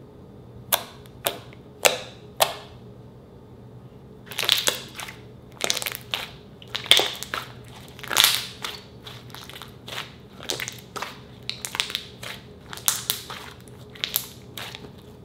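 Hands squishing and kneading pink slime, making sharp wet pops: four separate ones in the first few seconds, then a quicker, irregular run of pops and squelches.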